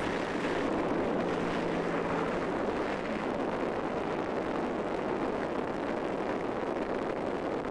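Steady rush of wind and engine noise at the open door of a small high-wing plane in flight, the slipstream blowing across the microphone.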